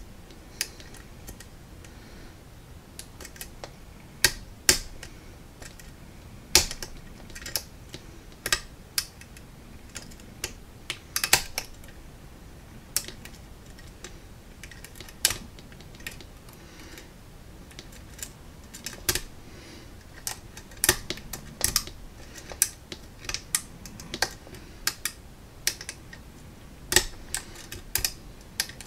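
Irregular sharp metallic clicks as a steel offset diamond pick works the pin stacks of an Arrow six-pin rim cylinder under light tension: single-pin picking, feeling for binding pins. The clicks come about one or two a second, sometimes in quick little clusters.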